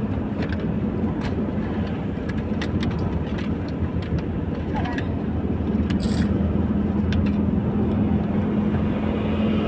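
Steady engine and road noise of a car, heard from inside the cabin while driving, with a constant low hum and a few faint clicks.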